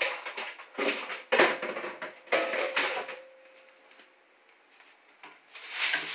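Kitchen items knocked and handled at the sink: a run of separate clatters in the first three seconds, one leaving a short metallic ring, then a brief hiss near the end.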